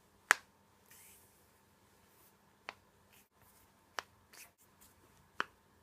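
Four sharp, separate pops spread a second or more apart, the first the loudest.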